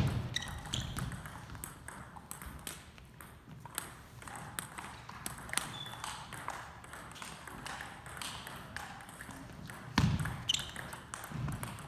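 Table tennis rally: the ball clicking off the paddles and the table in quick, irregular succession, with a louder thump about ten seconds in.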